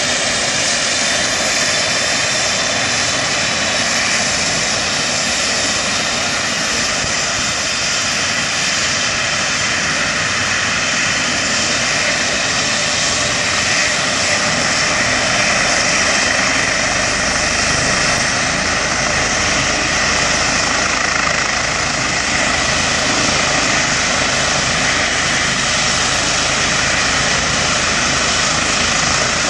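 Rescue helicopter's turbine engines and rotor running steadily on the ground before lift-off, a loud even whine over a rushing roar.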